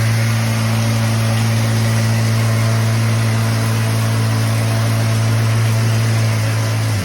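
Running shower with its plumbing giving off a loud, steady vibrating hum over the hiss of the water. Just before the end the hum drops suddenly to a lower pitch and gets louder.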